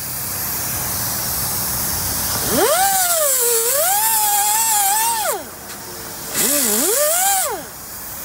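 Handheld cut-off wheel tool cutting expanded-metal gutter-guard mesh: two runs of high whine, one about two and a half seconds in and lasting a few seconds, a shorter one near the end. Its pitch sags and climbs as the wheel bites into the metal, over a hiss.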